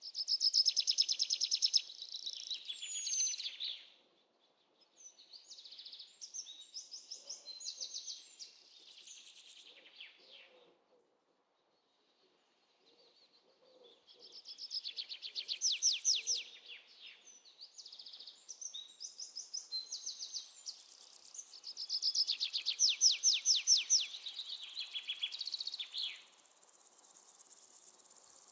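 Songbird singing fast trills of rapid, high notes in repeated song phrases, with pauses of a second or two between bouts.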